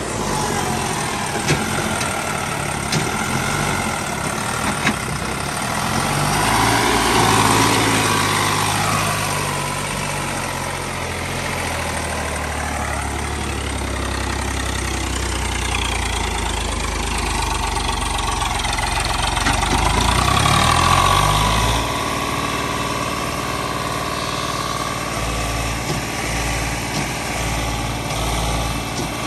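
Tractor diesel engine straining under heavy load, swelling louder twice, about a quarter of the way in and again about two-thirds through. The tractor is stuck, unable to pull an overloaded trolley, with its wheels dug into wet soil.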